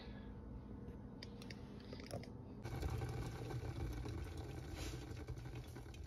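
Glass electric kettle heating water: a low rumble of water coming toward the boil, growing louder about two and a half seconds in as bubbles stream up.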